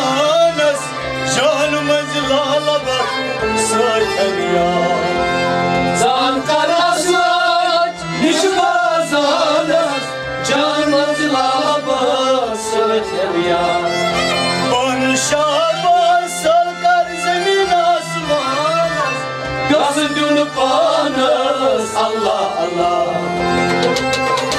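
Kashmiri Sufi folk music played live: harmonium and bowed string instruments carrying a bending melody, with singing and sharp, regular drum strokes.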